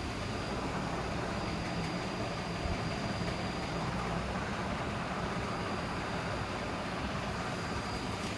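Steady mechanical running noise, a low hum with a thin high whine over it. The whine stops near the end, with a click.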